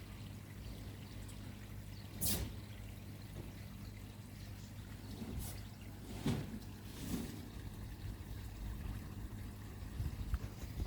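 Water pouring and trickling steadily into a koi pond from its filter return, over a steady low hum. A few short sharp sounds come through, the loudest about two seconds in.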